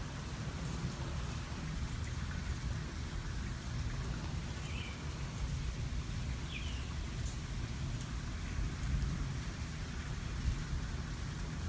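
Steady rain falling during a thunderstorm, with low rolling thunder rumbling throughout.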